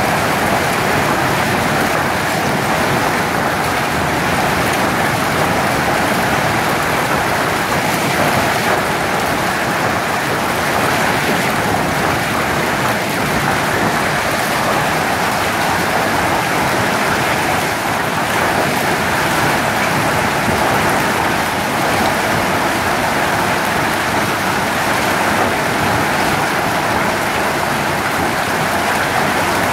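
Hail and heavy rain pelting down on a wet concrete car park: a loud, steady, dense clatter and hiss with no break.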